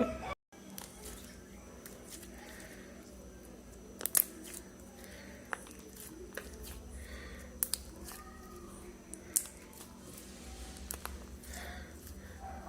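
Homemade cornstarch and hair-gel slime being poked and stretched by hand, giving scattered small sticky pops and clicks as trapped air bubbles burst.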